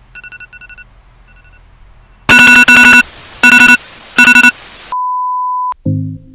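Electronic alarm beeping: faint quick beeps at first, then, about two seconds in, very loud beeps in repeating pairs. A steady single tone follows for just under a second, and music starts near the end.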